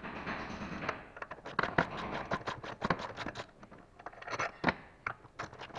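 Light clicks and scraping from a gloved hand working at a car's upper engine mount bracket and its bolts, in uneven runs of several clicks a second with some rustling near the start.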